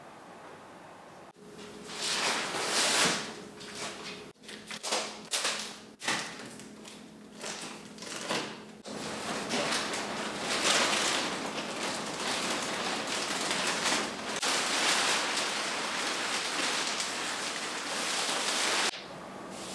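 Plastic wrapping on a foam mattress crinkling and rustling as it is cut and pulled off: several short bursts, then steady crinkling for about ten seconds that stops suddenly near the end.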